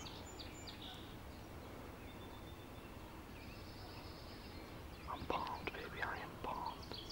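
Songbirds calling faintly over quiet rural ambience, a few short high notes and a brief high trill. About five seconds in, a louder run of short, irregular sounds takes over.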